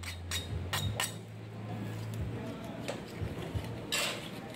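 Small metal hopper pans and their lids clinking and clattering on a gas-burner range: a few sharp clinks in the first second and a louder clatter about four seconds in, over a steady low hum that stops about two seconds in.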